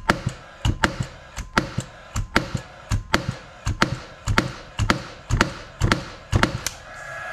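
Paslode cordless finish nailer dry-fired with no nails: about ten shots in a steady run, a little under one a second, each a sharp double crack.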